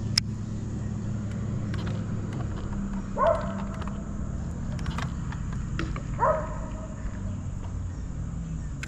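Two short animal calls, one about three seconds in and one about six seconds in, over a steady low hum, with a few light clicks.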